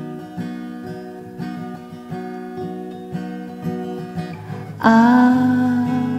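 Acoustic guitar music: plucked notes about twice a second, then a louder held melody coming in about five seconds in.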